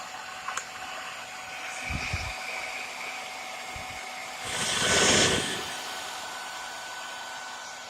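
Hairdryer running steadily, heating the headlamp to soften the glue holding the lens. About four and a half seconds in, it swells loud for about a second, then settles back. A few low knocks come about two seconds in.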